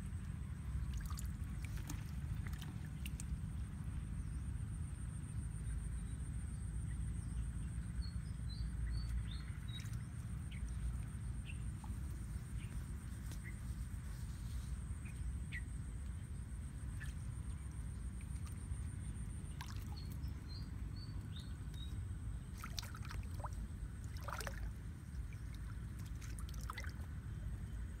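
Small splashes and trickles of water as hands grope through shallow muddy water inside a bamboo-stake fish trap, over a steady low rumble. A steady high whine runs throughout, and a short falling run of bird chirps comes twice.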